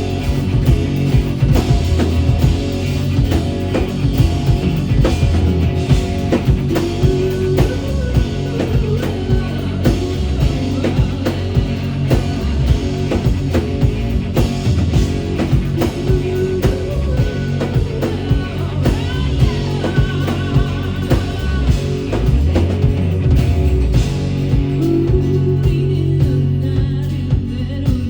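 Live rock band playing a song, drum kit keeping a steady beat under guitars, with little or no singing.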